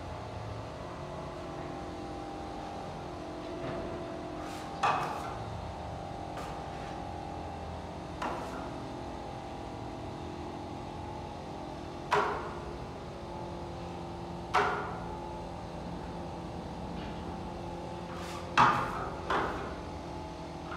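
Sharp, short clacks of metal plastering tools, a wide putty knife and a smaller blade, knocking together as wall putty is worked onto a wall. About six knocks come spread out over a steady background hum, the last two close together.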